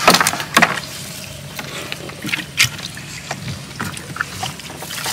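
Scattered knocks and clatter against the hull of a small plastic boat as a man shifts about in it and handles the catch. The strongest knocks come right at the start and again at about half a second and two and a half seconds in.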